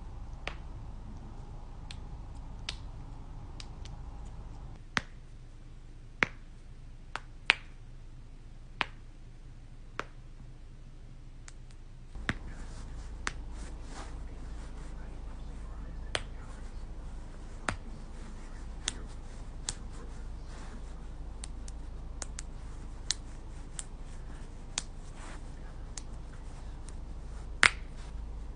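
Knuckles cracking: irregular sharp pops a second or a few seconds apart, sometimes two in quick succession, over a low steady background hum. The loudest pops come near the end.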